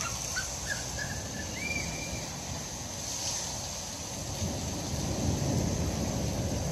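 Steady rain hissing on pavement and a flooded street, with wind rumbling on the microphone that grows stronger in the second half.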